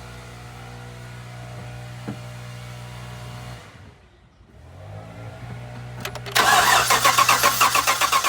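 Starter cranking over a Chevy 5.3L V8, starting about six seconds in as a loud, rhythmic pulsing; the engine has a dead cylinder, which the mechanic puts down to a collapsed lifter. Before that, a steady low hum.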